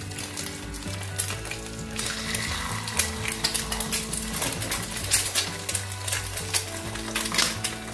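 Eggs sizzling and crackling as they fry in a little vegetable oil in the cups of a four-cup nonstick egg pan. The crackle grows louder and busier about two seconds in, as a second egg goes into the hot pan. Soft background music underneath.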